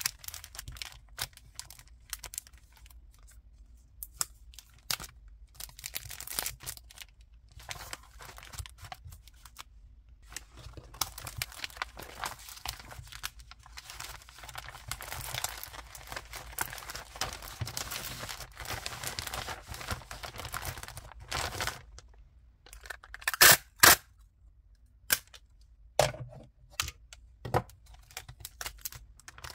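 Pink plastic poly mailer bag crinkling and rustling as it is handled and smoothed flat, with a longer stretch of steady rustling midway and a few loud sharp plastic snaps near the end.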